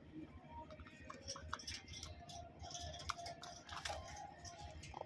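Pet birds pecking at seed, a scattering of small irregular clicks and ticks.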